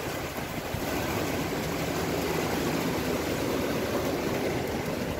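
Rain falling steadily, with a low, even rumble underneath that grows a little louder after about a second.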